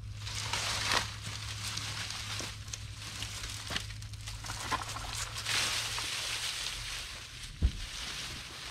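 Cut tree limbs and brush being handled and dragged, crunching and rustling through dry leaves and twigs in waves, over a steady low hum. A sharp thump about seven and a half seconds in.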